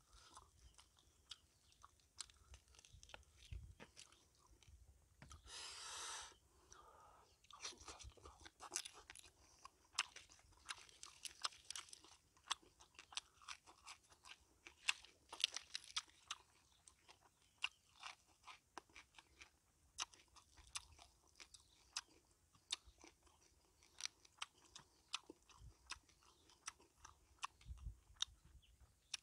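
A person chewing and crunching grilled fish and fresh lettuce: many short, sharp crunches and mouth clicks in an uneven rhythm.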